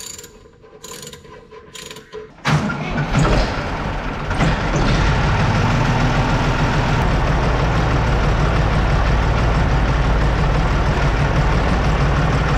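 Quiet, evenly spaced clicking, then about two and a half seconds in a Valmet tractor's diesel engine comes in abruptly and runs steadily and loudly as the tractor is driven.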